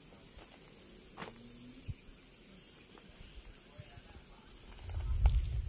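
Insects chirping in a steady high-pitched drone, with a brief low rumble about five seconds in.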